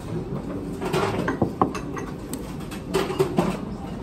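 Eating from a porcelain donburi bowl with chopsticks: the chopsticks scrape and click against the bowl as rice and katsu are shovelled in. There are a few sharp clicks about a second and a half in and again near three seconds.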